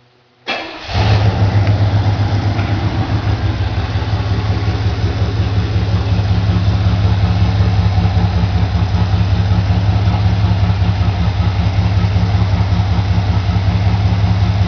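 Cold carbureted engine catching about half a second in, then idling with an even, rapid pulse and a strong low rumble.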